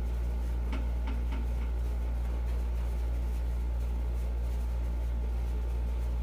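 Steady low hum, with three faint clicks about a second in.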